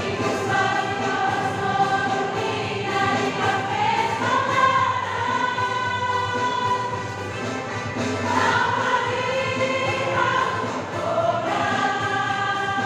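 A women's choir singing in unison and harmony, holding long notes and sliding between pitches in a continuous phrase.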